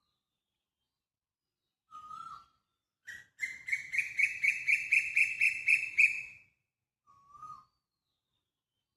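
Bird calling: a short call, then a loud, rapid run of repeated notes, about four a second, lasting about three seconds and growing louder, then another short call near the end.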